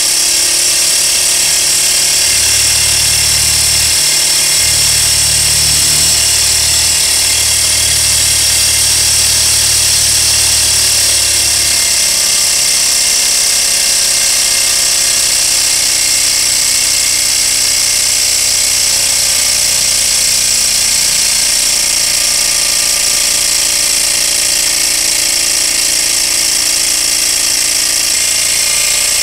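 Small alcohol-fired Stirling engine running steadily with a high mechanical whirr while it drives a small generator. A low hum sounds under it for the first ten seconds or so.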